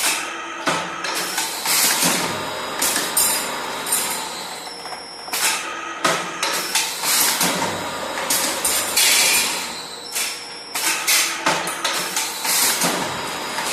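Steel being worked on a rolling mill: irregular metallic clanks and knocks, several a second at times, with harsh hissing stretches and a steady machine tone underneath.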